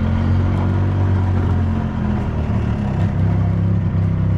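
Maintenance utility cart's engine running steadily as the cart drives along, its pitch wavering briefly about three seconds in.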